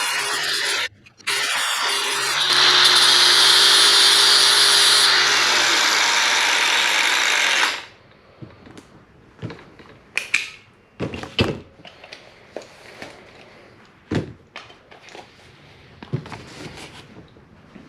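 Handheld power tool running in a short burst, then steadily for about six seconds. Its pitch dips before it cuts off about eight seconds in, and scattered knocks and clicks follow.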